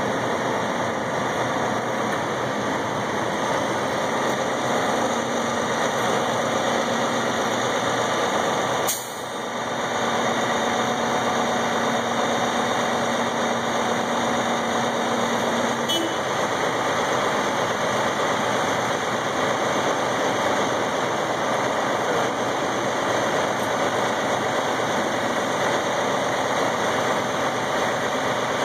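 A heavy diesel truck's engine runs steadily, powering the hydraulics of a truck-mounted Hiab knuckle-boom crane as it lifts a load. A steady low hum joins in about five seconds in and stops about sixteen seconds in. The sound briefly dips about nine seconds in.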